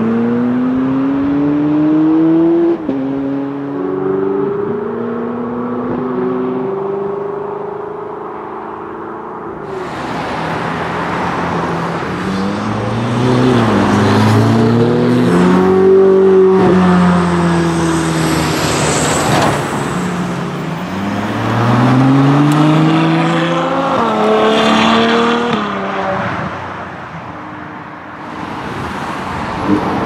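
Ferrari 488 Spider twin-turbo V8s accelerating hard and shifting up through the gears, the engine pitch climbing and dropping back at each shift. From about ten seconds in, cars rev and drive past one after another, with their pitch falling as each goes by.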